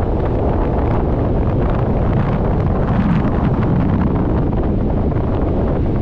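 Strong wind buffeting the microphone, a loud, steady low rumble, with waves breaking on the beach underneath.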